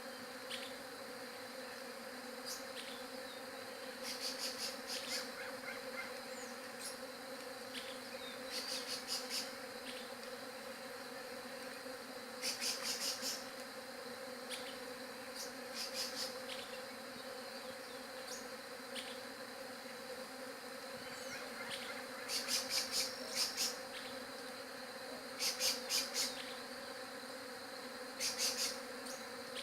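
Bees buzzing in a steady, continuous hum. Every few seconds it is joined by short bursts of rapid, high-pitched pulsing chirps, like another insect calling.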